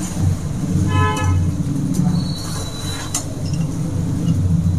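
A short vehicle horn toot about a second in, over a steady low hum, with a light click near the middle.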